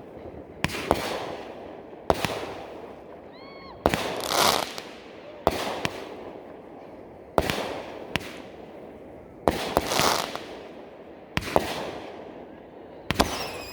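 Consumer fireworks going off: a series of sharp bangs about every one to two seconds, each followed by crackle and hiss, with a short whistle about three and a half seconds in.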